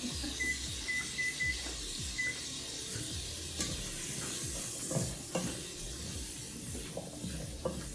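Chopped carrots and celery sizzling in bacon drippings in a pot, a steady frying hiss. From about halfway, a wooden spoon stirs them, with scattered scrapes and knocks against the pot.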